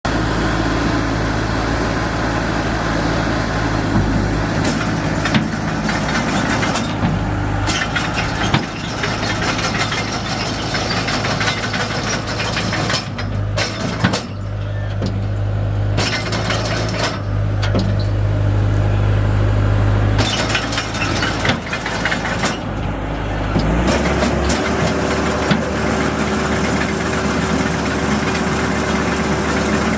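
Skid steer loader engine running steadily while a Rockhound 60B landscape rake works the ground, with a continual scraping clatter of soil and stones. About 24 seconds in, the engine note rises and holds at higher revs.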